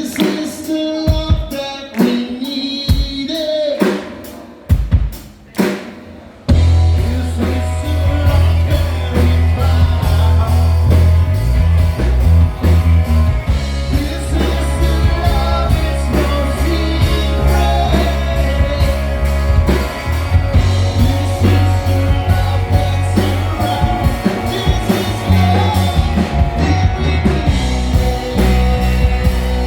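Live rock band playing a song. A sparse opening of sung lines over separate drum hits; about six seconds in, the full band comes in with heavy bass, drums, guitar and singing.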